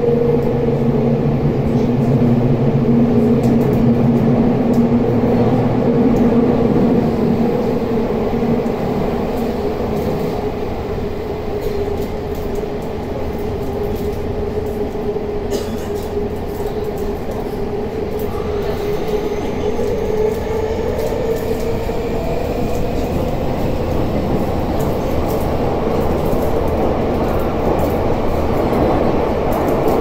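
Tokyu 5050 series commuter train running through the subway tunnel, heard from inside the car: the Hitachi IGBT-VVVF inverter and traction motors hum in steady tones over wheel and rail noise. The sound eases slightly midway, and a faint tone rises in pitch in the second half.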